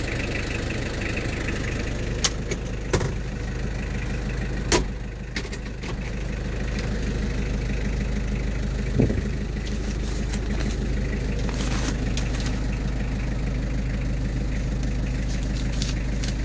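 Nissan Vanette's LD20 2.0-litre naturally aspirated diesel engine idling steadily. A few sharp clicks or knocks come over it, the loudest about five seconds in.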